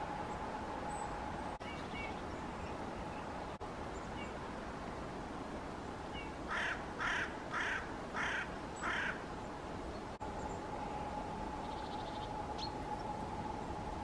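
Eurasian jay giving five harsh screeches in quick succession, about half a second apart, a little past the middle, over a low steady background hiss.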